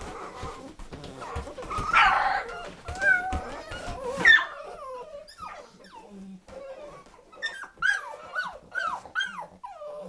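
Nine-week-old puppies whining and yelping as they play-fight, with scuffling in between. Near the end comes a quick run of short, falling yelps.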